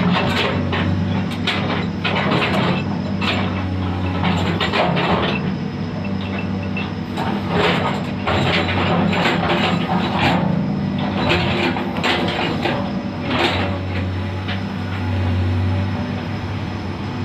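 Komatsu PC210 hydraulic excavator's diesel engine running steadily under load, with rock and dirt clattering and scraping in the bucket as it digs through broken stone. The clatter thins out near the end while the engine hum carries on.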